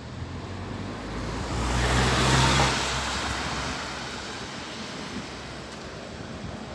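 A car driving past close by on a wet road: the tyre hiss and engine noise swell to a peak about two seconds in, then fade as it moves away.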